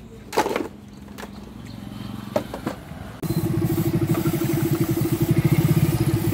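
A few knocks and clatters, then about three seconds in a small engine starts up and runs with a fast, even pulsing beat.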